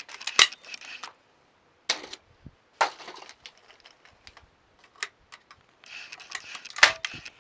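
Sharp metallic clicks and knocks at irregular intervals, the loudest about half a second in and again near the end: a break-action shotgun being handled and reloaded between clay pairs.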